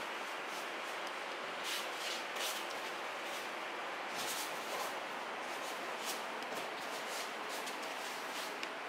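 A child doing aikido backward rolls on tatami mats: scattered soft rustles of the cotton training uniform and a light thud on the mat about four seconds in, over a steady background hiss.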